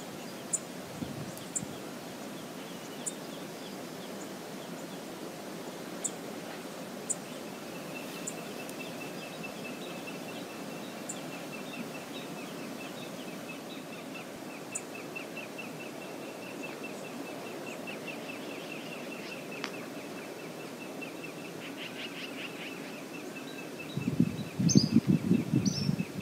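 Steady outdoor background hiss with scattered faint sharp ticks, and from about a third of the way in a bird's high, rapid trill that keeps going. Near the end a brown bear splashes heavily through the river for about two seconds as it wades into deeper water, the loudest sound here.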